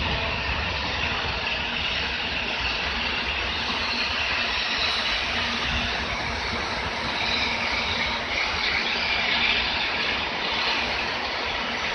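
N700 series Shinkansen train arriving at a station and rolling past the platform, a steady running noise of the train on the rails.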